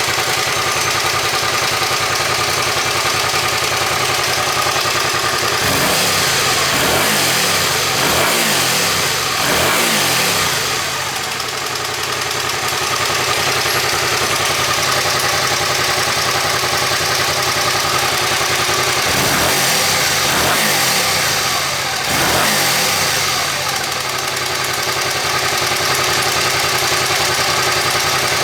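Suzuki SV400 V-twin engine idling, its throttle blipped three times about six seconds in and three times more near twenty seconds in. It runs with an occasional dry snap like a flicked card from the front cylinder, which the mechanic puts down to a stretched front-bank cam chain.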